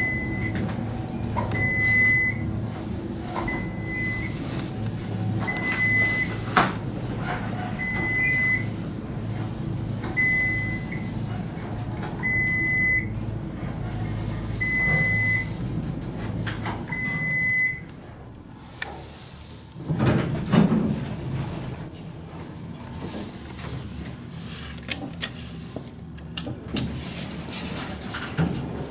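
Dover/Lagerquist traction elevator car travelling with a low steady hum and a short high beep about every two seconds. The hum stops about 18 seconds in as the car comes to a stop, followed by clunks as the car's sliding doors open.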